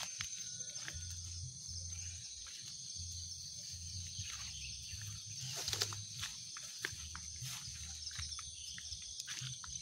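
Footsteps and rustling through grass and leaf litter as someone walks, over a steady high insect trill.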